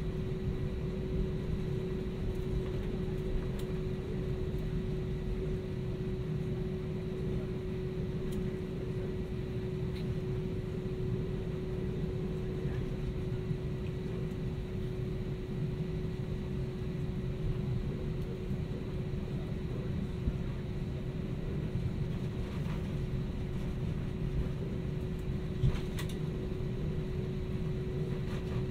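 Steady low rumble of an Airbus A320-200's passenger cabin, with a constant mid-pitched hum running over it. Near the end there is one brief click.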